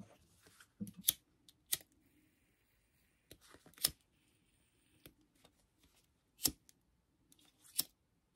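About half a dozen sharp, scattered clicks and light handling of a stiff vinyl piece, as a lighter is struck to burn off the ends of the thread stitched through it.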